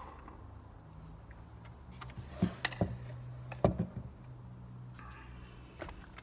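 A few sharp clicks and knocks of plastic tricycle parts being handled and fitted, the loudest about three and a half seconds in, over a faint steady low hum.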